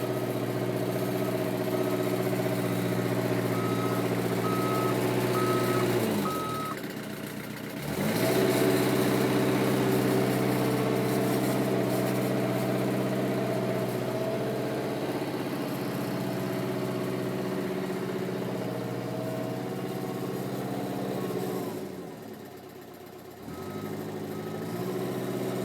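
Eurocomach E 235 K backhoe's diesel engine running under work, with its motion alarm beeping about once a second for the first six seconds and again near the end. Twice the engine note drops for a second or so, then picks back up.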